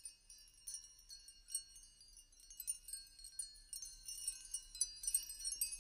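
Faint wind-chime tinkling in a soundtrack: many high bell-like tones struck at irregular moments and left ringing, growing louder toward the end.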